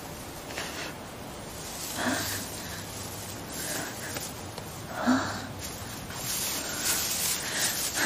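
A young woman crying quietly: sniffs and short, catching sobs come a few times, the loudest about five seconds in.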